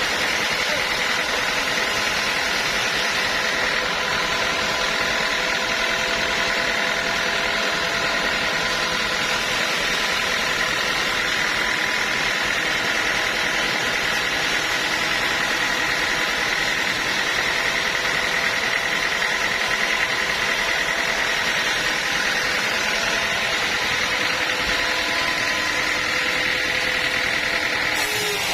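Sawmill machinery running steadily, a constant mechanical drone with a high, even whine and no pauses.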